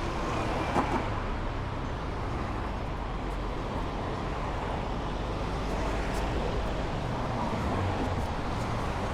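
City street traffic: a steady hum and rumble of cars passing, with a brief sharp sound about a second in.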